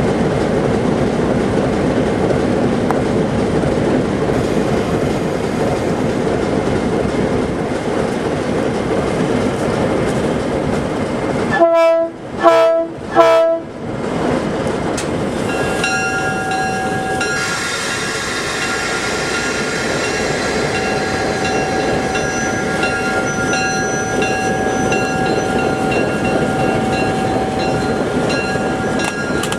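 Diesel train running with a steady rumble, broken about twelve seconds in by three short horn blasts. From about sixteen seconds a steady high-pitched squeal rides over the running noise.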